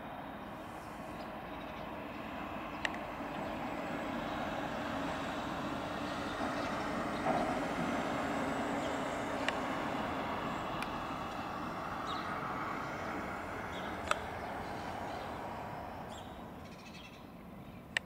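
Airbus A330-302 airliner on approach passing overhead, the rushing jet noise of its GE CF6-80E1 turbofans swelling to a peak about halfway through and fading near the end. A few brief sharp sounds stand out over it.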